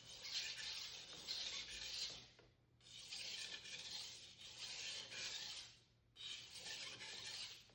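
Steel edge of a Global carving knife scraping across a wet 400 grit Naniwa waterstone in light burr-reduction strokes. The scraping comes in three runs, with short pauses about two and a half seconds in and about six seconds in.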